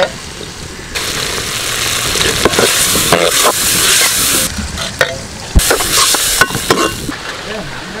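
Hot tempering and cucumber pieces in a metal pan sizzling as boiled dal water is ladled in about a second in, the hiss swelling twice and fading, while a metal spoon stirs and scrapes the pan.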